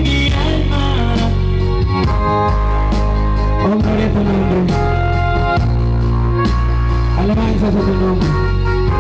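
Amplified live worship music through loudspeakers: keyboard, electric guitar and bass playing steadily, with a sung line gliding in about 4 s in and again about 7 s in.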